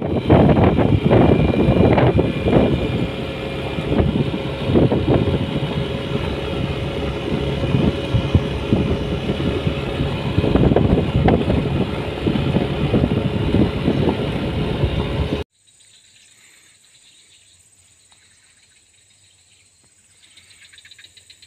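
Yamaha scooter riding along a gravel road: engine, tyre and wind noise, rough and loud with frequent bumps. It cuts off sharply about fifteen seconds in, leaving a faint steady high drone of insects.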